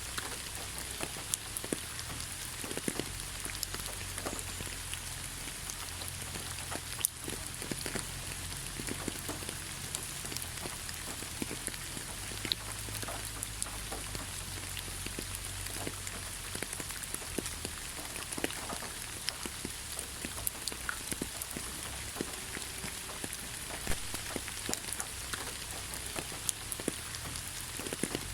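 Steady rain falling on a surface, with individual drops ticking sharply and irregularly close by.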